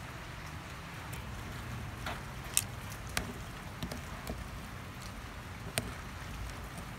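Wet shredded green mango salad being tossed in a stainless steel bowl with a spatula, a soft wet rustling with a few irregular light clicks as the spatula knocks against the metal bowl, one or two ringing briefly.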